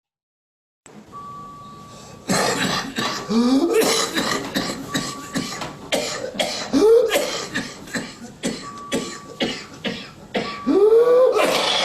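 Barking, croupy cough in repeated bouts starting about two seconds in. Harsh coughs alternate with rising, high-pitched indrawn breaths between them: inspiratory stridor, the sign of croup (laryngotracheobronchitis) or another laryngeal disorder.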